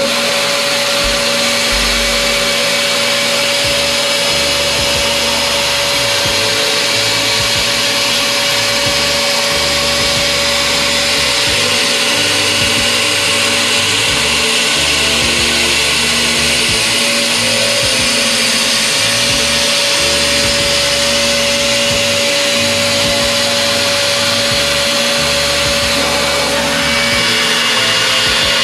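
DATRON high-speed CNC milling machine cutting an aluminium part: the spindle holds a steady high-pitched whine over the continuous hiss of the end mill and flying chips.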